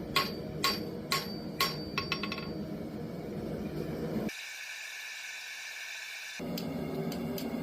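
Hammer blows on hot steel at the anvil: about five ringing strikes in the first two seconds over a steady low roar. The roar cuts off about four seconds in, leaving a hiss with a steady high tone, and comes back about two seconds later.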